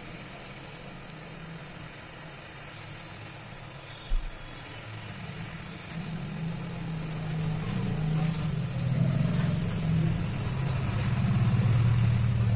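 Hot-air rework station blowing steadily onto a phone circuit board to heat a chip for removal. A low engine-like rumble builds from about halfway and is loudest near the end, with a single dull thump about four seconds in.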